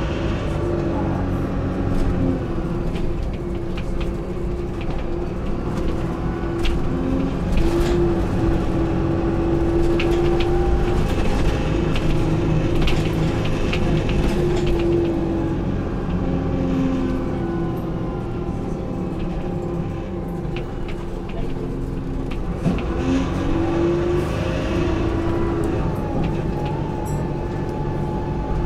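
Dennis Dart SLF bus heard from inside the saloon while under way: a steady engine and driveline drone whose pitch rises and falls with speed, climbing near the start and again near the end. Short rattles and clicks from the bodywork come through now and then.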